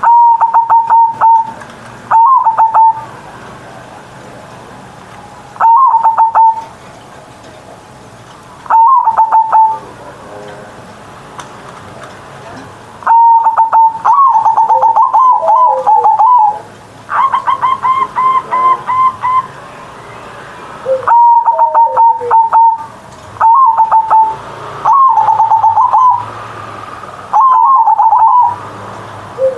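Zebra dove (perkutut) cooing loudly, phrase after phrase every few seconds. Each phrase is a quick stutter of short notes followed by a held, rolling coo.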